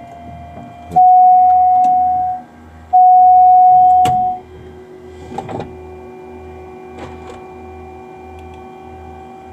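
Two loud, steady electronic warning tones in a small aircraft's cockpit, each about a second and a half long, the first about a second in and the second about three seconds in. Under them is a steady electrical hum with a low pulse about twice a second, and a few clicks.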